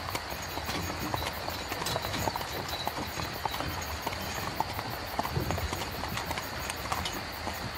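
Horse hooves clip-clopping in irregular strikes over a steady rumble of a horse-drawn carriage's wheels.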